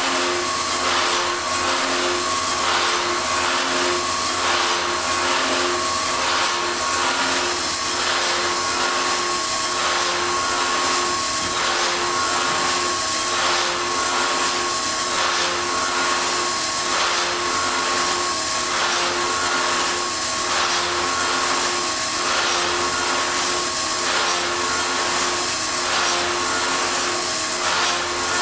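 SKF 4.22 copy-milling woodworking machine running: a steady mechanical rush with a constant whine, pulsing slightly in a regular rhythm.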